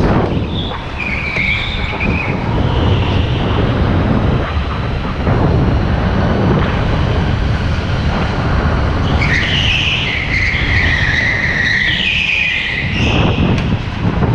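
Indoor rental go-kart driven hard, heard from on board: a steady low rumble from the kart, with its tyres squealing through the corners, briefly about a second in and longer from about nine to thirteen seconds in.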